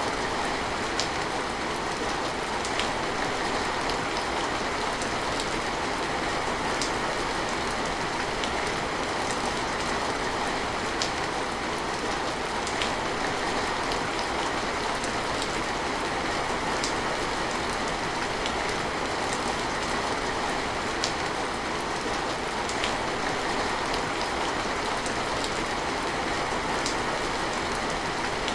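Steady rain with an even hiss and sharp drop ticks scattered every second or two.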